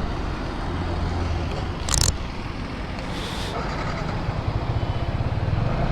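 Motorcycle engine running with a steady low rumble that pulses more strongly near the end, with a short loud hiss about two seconds in and a fainter hiss a second later.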